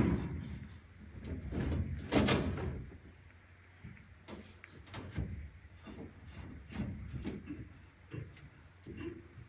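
Clamps being fastened down on a 2 mm metal sheet in a laser cutter's bed: a string of scattered clicks and knocks, the loudest about two seconds in.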